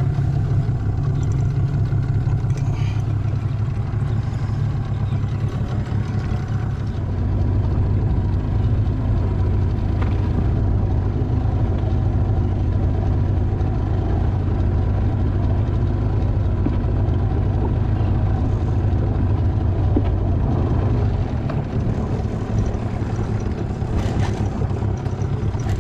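Outboard motor on a small skiff running steadily at low trolling speed, a constant low drone.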